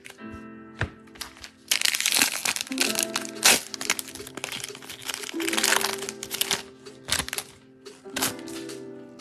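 Foil wrapper of a Donruss football card pack being torn open and crinkled: a dense crackling with sharp cracks from about two seconds in to about seven seconds, over background music.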